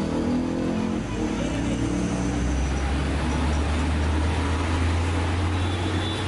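Road traffic, with a vehicle engine running steadily close by as a low hum from about a second and a half in.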